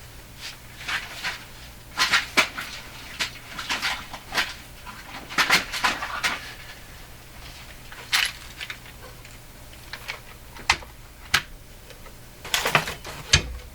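Small metal hardware clicking and clinking in irregular clusters, lock washers being picked through in a parts container.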